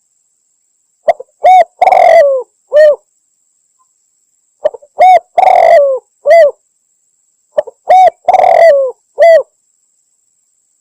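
Spotted dove cooing, a recorded lure call which the uploader describes as a female calling a male. Three identical phrases come about three seconds apart, each a short note, a coo, a longer coo that falls away at the end, and a final coo, with dead silence between them.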